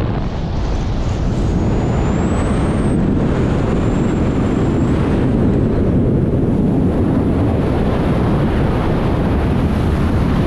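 Loud, steady rush of air over the microphone of a BASE jumper in freefall. A faint high whistle wavers in and out during the first few seconds.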